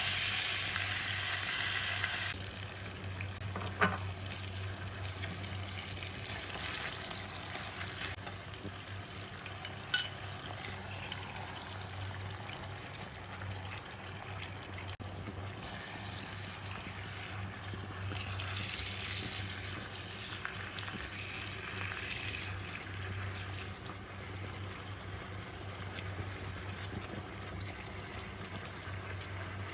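Pork belly strips sizzling in oil in a nonstick wok, loudest for the first couple of seconds and then settling to a steadier, softer sizzle. A few sharp clicks of metal tongs on the pan come through, over a low steady hum.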